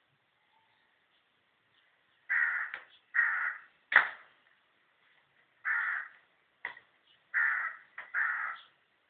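A crow cawing: about seven harsh calls in a loose series starting about two seconds in, the one about four seconds in sharper and louder than the rest.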